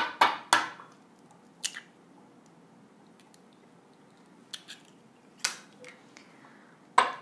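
Eggs being cracked on the rim of a bowl: a few sharp taps of shell against the bowl at the start, a few more scattered through the middle, and another cluster near the end as the next egg is cracked.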